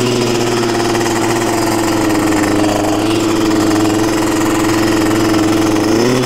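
KTM 300 two-stroke motorcycle engine running at a steady, held engine speed, its pitch rising slightly near the end.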